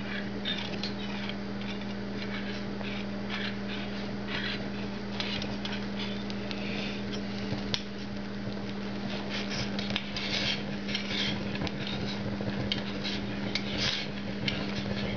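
Brandy burning in a metal spoon over a Christmas pudding: irregular soft crackles and small clicks, more of them in the second half, over a steady low hum.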